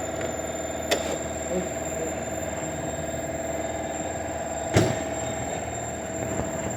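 A steady mechanical hum with a constant pitched tone, broken by two sharp metallic clanks, about a second in and near five seconds in, typical of tools working on a vehicle.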